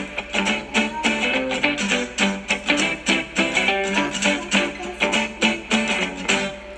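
Background music with a quick, even beat, fading down near the end.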